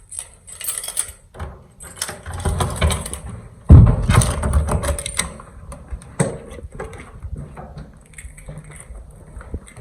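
Irregular clicks, knocks and rustling, with one loud, deep thump a little under four seconds in.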